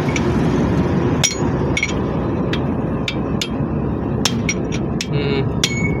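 Hammer striking a steel drift set against a truck wheel hub's lock nut to knock it loose: about eight sharp, irregularly spaced metal-on-metal strikes, each with a brief ringing tone, over a steady low background rumble.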